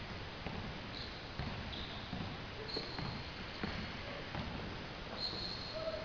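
Basketball being dribbled up an indoor court, with irregular low thuds and several short, high sneaker squeaks on the floor.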